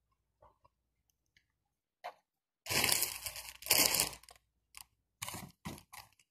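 Crunching and crinkling close to the microphone as fried food is handled and eaten: a few faint clicks, then two long, loud crinkling crunches a little under three seconds in, followed by a quick run of short crunches.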